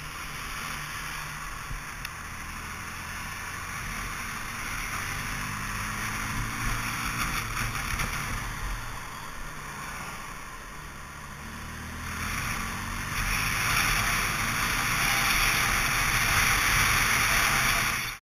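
Wind rushing over a motorcycle-mounted camera's microphone, with the motorcycle's engine running underneath. The rush grows clearly louder about two-thirds of the way through and stays loud.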